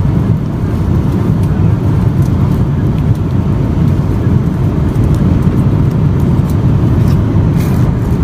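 Steady low rumble of jet airliner cabin noise in flight.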